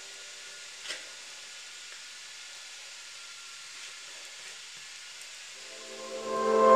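Steady even hiss with no distinct source, and a single short click about a second in. Background music fades in near the end.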